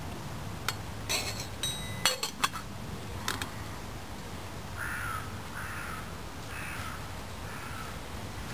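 Stainless steel billy can lid set on the pot and its wire bail handle clinking against the rim: several sharp metallic clicks in the first three seconds, one ringing briefly. Then a bird calls four times, about a second apart.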